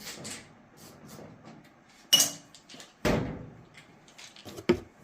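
Sharp metallic clinks while the screws come out of a dryer's sheet-metal top panel and go into a magnetic parts tray. There are two loud clinks about a second apart, the first ringing briefly, then a few lighter clicks near the end.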